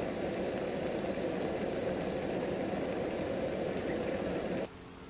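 Water at a rolling boil in a stainless steel pot, a steady bubbling rumble that cuts off abruptly near the end.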